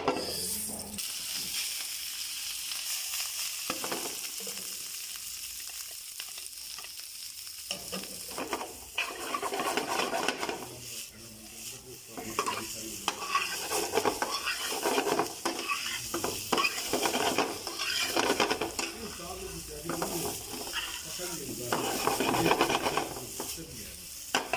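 Garlic sizzling as it fries in butter in a pan, with a steady hiss. From about a third of the way in, a spatula stirs and scrapes the pan in quick, irregular strokes, which become the loudest sound.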